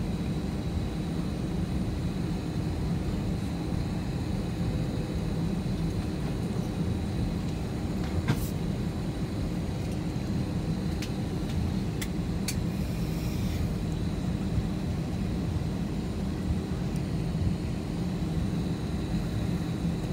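Steady low rumble inside an airliner cabin as the jet taxis, from the engines and the rolling on the taxiway, with a faint steady high whine. A few light clicks or rattles come about eight and twelve seconds in.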